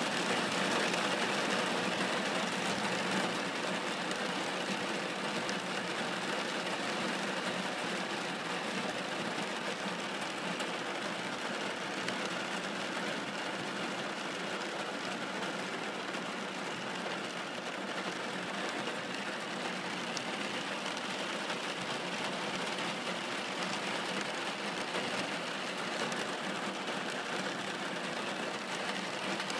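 Rain pattering steadily on a car's glass sunroof, heard from inside the car.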